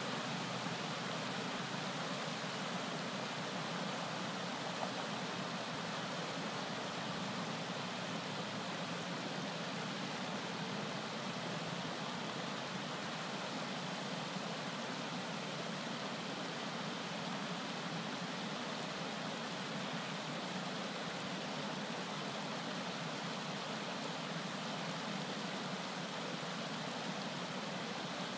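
Floodwater flowing across a paved road and spilling over its edge, a steady, even rush of water.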